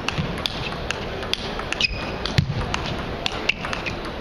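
Table tennis ball clicking off bats and the table in a rally, with more scattered ball clicks from other tables echoing around a large hall. A few short high squeaks and low thuds are mixed in.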